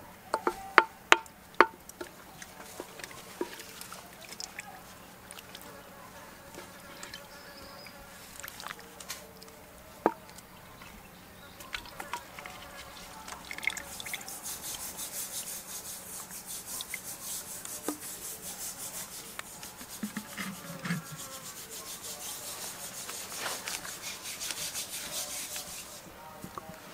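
A ladle clacking sharply several times against a clay pot and clay bowl as curry is served, followed by scattered small knocks and scrapes of handling the bowl and chopsticks. A high, fast-pulsing hiss comes in about halfway through.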